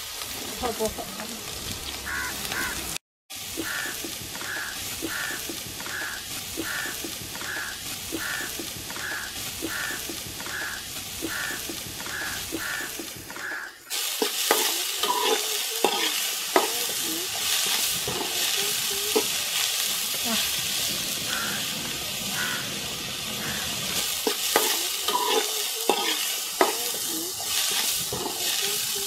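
Chopped onions frying in hot sunflower oil in a large metal pan, with a steady sizzle and a spoon scraping as they are stirred. The sizzle gets louder about halfway through.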